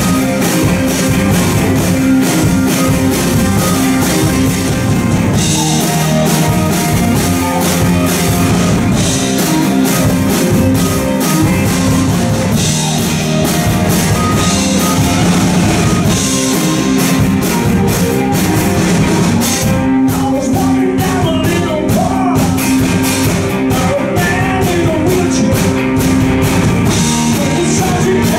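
Live rock band playing: electric guitars, bass guitar and drum kit with cymbals, in a passage without vocals where a lead electric guitar plays bending lines over the rhythm section.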